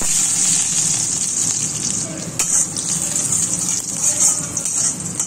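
Oil sizzling in a hand-beaten iron kadai as pieces fry, with a metal spatula stirring and scraping against the pan several times in the middle.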